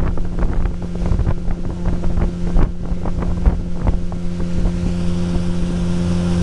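Motorboat's outboard engine running steadily under way, with wind on the microphone and frequent short thumps throughout.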